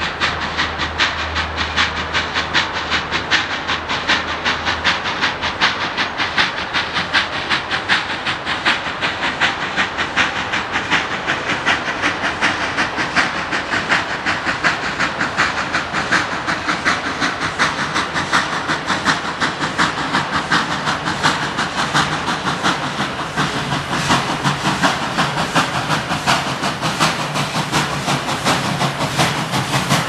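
Steam locomotive running with its train: rapid, even beats, about five a second, over a steady hiss. A low hum fades out about five seconds in.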